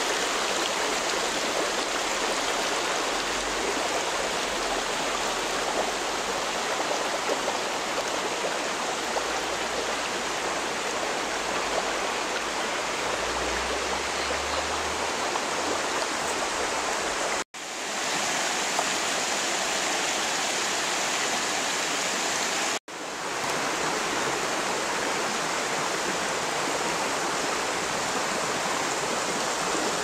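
Steady rush of a shallow mountain stream running over rocks and stones, cut off for an instant twice.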